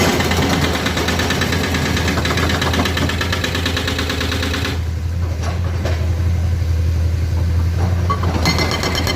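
Excavator's diesel engine running steadily, with a loud rattling clatter on top that drops away about five seconds in and comes back near the end.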